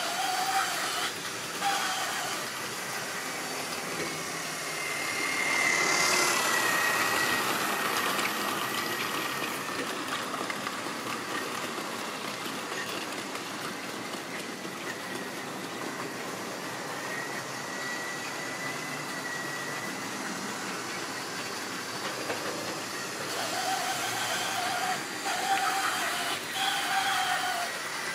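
A model railway train running on the track: a steady rattle of wheels on rail with a thin electric motor whine, louder about five to eight seconds in as it passes close, and again briefly later.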